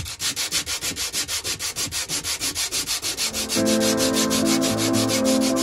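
Hand sanding of the Optimus 111 stove's stripped sheet-metal case with a sanding sponge: quick back-and-forth scrubbing strokes, about six a second. Background music comes in about three and a half seconds in.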